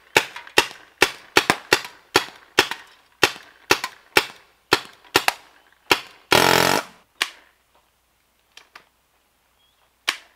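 Paintball marker firing .68-calibre paintballs semi-automatically, a rapid string of sharp shots a little over two a second. About six seconds in there is a loud half-second rush of noise, followed by a few slower single shots, the last near the end.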